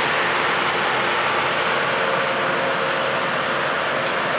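Loram RG314 rail grinder passing with its grinding stones working the rail: a steady rushing noise with a faint hum beneath it.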